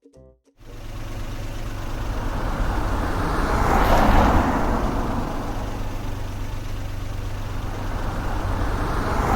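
Low, steady engine-like rumble from an added sound effect, starting about half a second in and swelling briefly around four seconds in.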